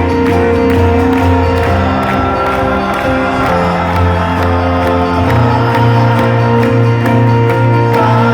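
Live rock band music, loud and steady: an instrumental passage with a regular beat and sustained bass notes that change every couple of seconds, without singing.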